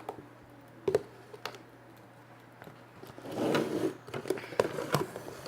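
Small clicks and knocks from objects being handled, then about a second of rustling, squishing noise a little past halfway, followed by more clicks, over a low steady hum.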